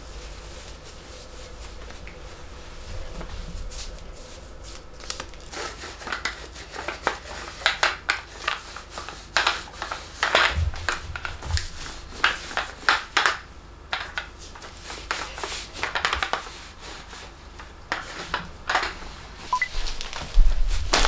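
Adhesive lint roller rolled in repeated short strokes over a knit sweater, the sticky tape crackling as it pulls off the fabric. A single dull thump near the end.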